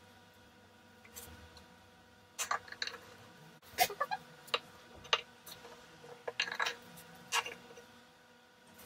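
Twine being wound around a forked twig and pulled taut: irregular short rustles and clicks of string rubbing on wood and being handled, a few of them sharp.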